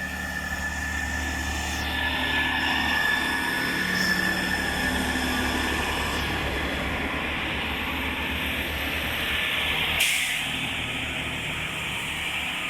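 Chiltern Railways Class 165 diesel multiple unit pulling out and running past, its engines giving a steady low drone under a high, steady whine that is thought to come from the wheels. A single sharp crack about ten seconds in.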